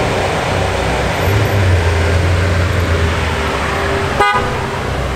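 Ferrari J50's twin-turbo V8 running low and steady as the car rolls by at walking pace, rising slightly about a second in. About four seconds in, a car horn gives one short toot.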